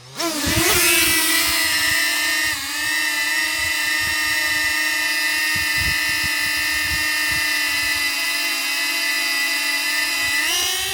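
Small DJI quadcopter drone's propellers spinning up for takeoff, then a steady high whine as it hovers. The pitch dips briefly about two and a half seconds in and rises again near the end, with irregular low rumbling underneath.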